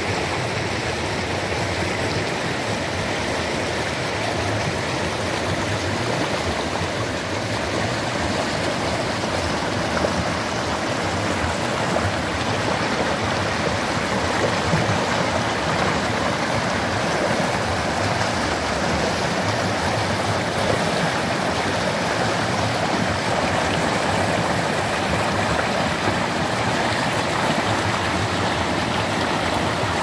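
Small clear creek rushing over rocks and through small cascades: a steady, even rush of flowing water.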